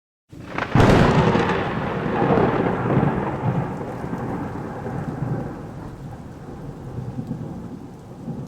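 Thunder sound effect: a sharp thunderclap just under a second in, then a long rolling rumble that slowly dies away, over a steady hiss of rain.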